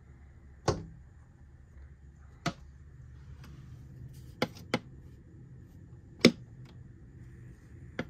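A female northern cardinal pecking and striking at window glass from outside: five sharp, irregular taps, two of them in quick succession about halfway through, with a couple of fainter taps after.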